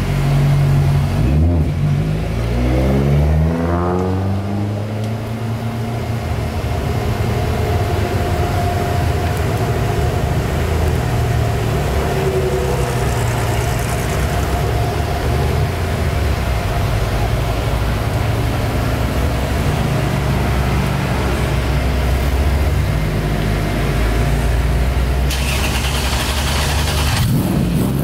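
Lancia Stratos rally car's Ferrari-derived 2.4-litre V6 running with the throttle worked from the cockpit. The revs fall back from a blip a couple of seconds in, the engine runs steadily at low revs through the middle, and it is revved again near the end.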